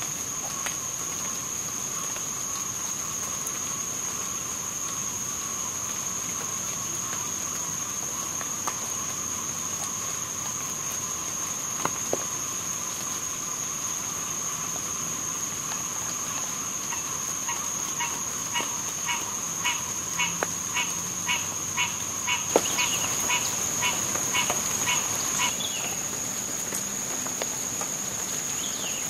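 Swamp insect chorus with a steady high-pitched whine and a lower steady hum, with a few sharp ticks. A little past halfway, an animal call begins repeating in short notes about two a second, growing louder for several seconds, then stops.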